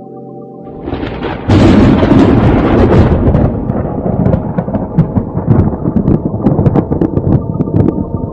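Wind buffeting the camera's microphone: a loud, rough rumble that starts about a second in and jumps louder half a second later, with crackles and knocks throughout.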